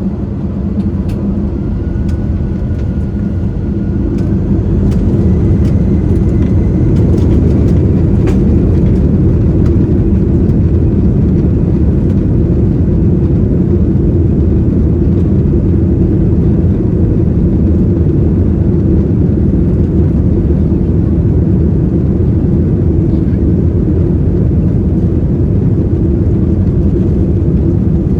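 Airbus A320's CFM56 jet engines heard from inside the passenger cabin, spooling up over the first few seconds and then holding steady at high takeoff thrust. A few light cabin rattles come in the first several seconds.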